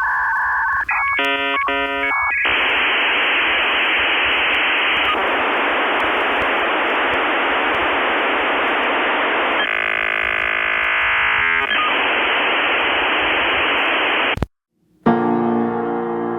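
Dial-up modem connecting: steady beeping tones and a quick burst of dialing tones, then a long hissing handshake screech with a stretch of warbling tones in the middle, cutting off suddenly. Piano-like background music starts right after, near the end.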